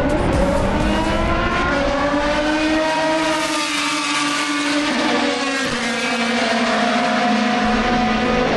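Racing car engine at full song on the circuit, its note rising as it accelerates through the first couple of seconds, then falling away through the middle and settling to a steadier pitch near the end.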